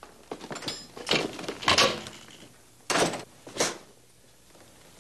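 A wooden door being opened and shut, with footsteps and handling noises: a string of short knocks and scuffs, with two sharper knocks about three seconds in.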